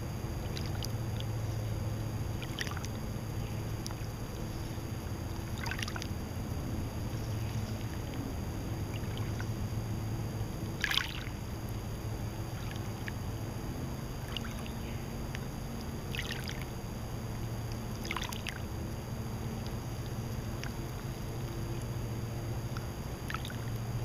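Lake water lapping at the shore: short splashes and laps every couple of seconds, the clearest about eleven seconds in, over a steady low rumble.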